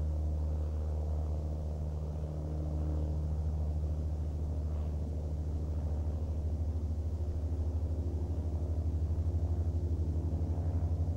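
A steady low droning rumble, like a distant engine or motor, that takes on a fast regular pulse in the second half.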